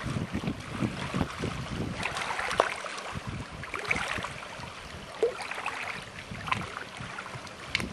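Wind buffeting the microphone over the rush and splash of choppy lake water, with scattered short sharp splashes.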